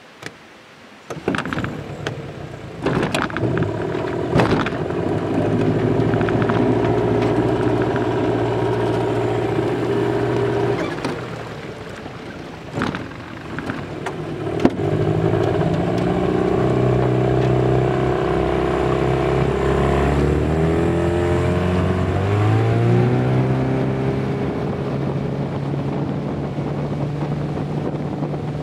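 A few knocks, then a small boat's motor starts about three seconds in and runs with a steady hum. It eases off for a few seconds around the middle, then rises in pitch a little past two-thirds in as the throttle opens, and holds steady to the end.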